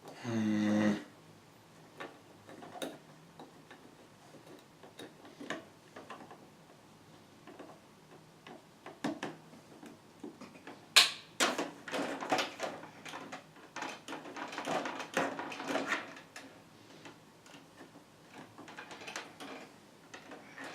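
Scattered clicks, knocks and rattles of computer parts being handled and fitted in a PC case, busiest in the second half, with a short low pitched sound right at the start.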